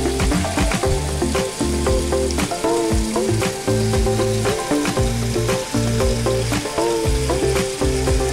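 Water pouring and splashing into a koi pond, a steady crackling hiss with many small splashes. Music with low, stepping notes plays underneath.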